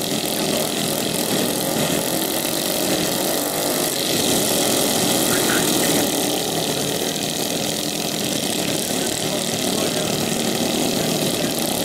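Several racing lawnmowers' small petrol engines running together, a steady mixed engine drone.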